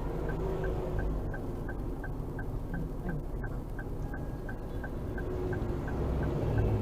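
Car engine running with a steady low rumble inside the cabin, with a regular ticking about three times a second throughout.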